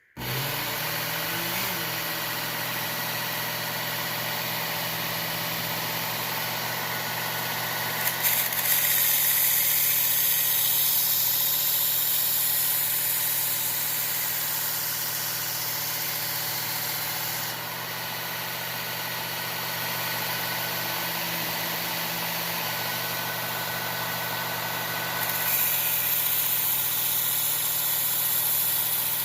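Work Sharp belt knife sharpener starting and running at its lowest speed with a steady motor hum; a 120-grit belt grinds a knife edge to reprofile the bevel, with a louder hiss while the blade is on the belt, from about 8 s to about 17 s and again from about 25 s.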